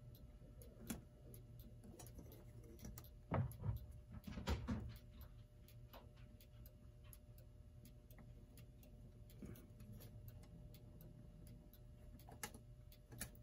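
1947 Seth Thomas Baxter desk clock movement ticking softly. Louder knocks and scrapes come from handling about three to five seconds in and twice near the end, as the clock hands are fitted.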